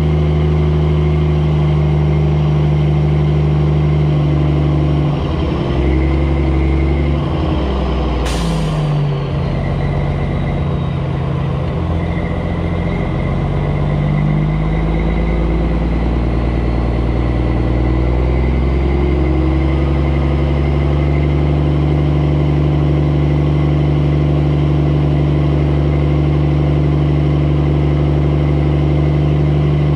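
Mack truck's diesel engine running under way, its pitch dipping and climbing again several times between about 5 and 20 seconds in, then steady. A short hiss of air is heard about 8 seconds in.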